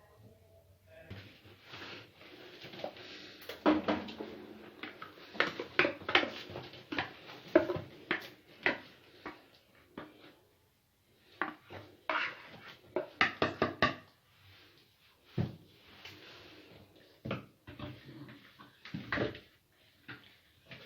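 Spoon or whisk knocking and clinking against a mixing bowl while cake batter is mixed, in irregular strokes with a quicker run of clicks about two-thirds of the way through.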